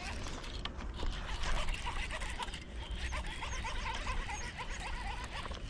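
A rapid, irregular series of short chirping animal calls over a steady low rumble.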